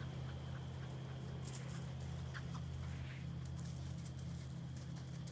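Faint patter and rustle of Labradoodle puppies' paws scampering over grass and gravel, a few light clicks in the middle, over a steady low hum.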